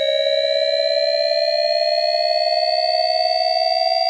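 A synthesized electronic tone sliding slowly and steadily upward in pitch, with fainter higher tones rising alongside it: a rising sweep sound effect.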